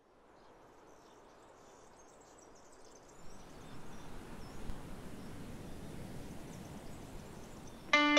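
Outdoor nature ambience fading in slowly: a soft, steady rushing with faint, high, short chirps. Guitar music cuts in loudly just before the end.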